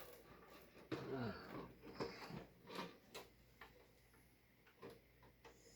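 Scattered, irregular light clicks and taps of screws and metal case parts being handled while fitting a PC power supply, with a brief low voice sound about a second in.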